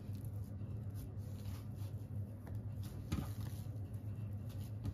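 Soft squishing and light patting of wet wholegrain bread dough being stretched and folded by hand on a wooden worktop, with a couple of faint soft slaps, over a low steady hum.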